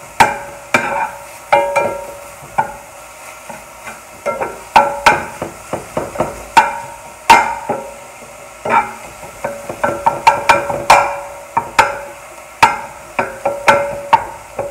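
Spatula stirring deer sausage in a hot skillet: irregular clacks and scrapes against the pan, about one or two a second, each with a brief metallic ring, over faint frying.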